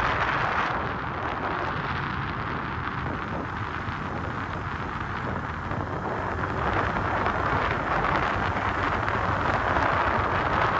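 Steady rushing wind noise on the microphone, easing a little early on and swelling again over the last few seconds.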